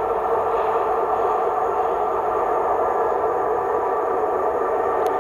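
Electric locomotive hauling passenger coaches as it approaches along the track: a steady rush of wheels on rail and running gear, with a faint whine in it.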